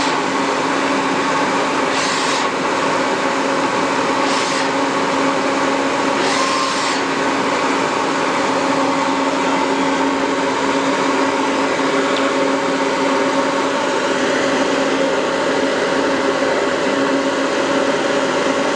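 Citizen M20-III Swiss-type CNC lathe running its gang-slide live tools at a steady speed, a constant machine whine and whir. Three short bursts of hiss come in the first seven seconds.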